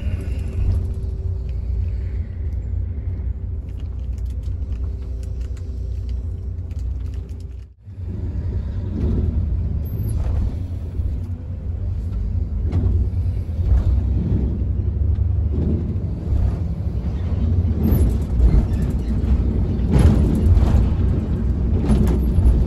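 Low, heavy rumble of a moving road vehicle, with a steady hum over it for the first several seconds. It breaks off briefly about eight seconds in, then returns with uneven knocks and rattles.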